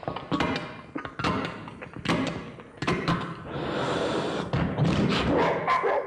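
A man making sound effects with his voice into a handheld microphone: a rapid string of mouth clicks and thumps, then a long hissing, crashing stretch about halfway through and more loud noisy effects near the end.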